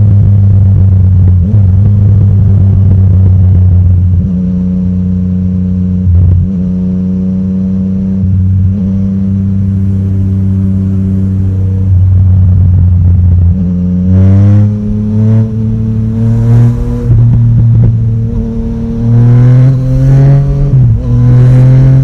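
Yamaha Tracer 900 GT's 847 cc three-cylinder engine through an Akrapovic exhaust, running steadily at part throttle. About two-thirds of the way in, the throttle opens for an overtake and the revs climb in two rising surges, with a short break between them.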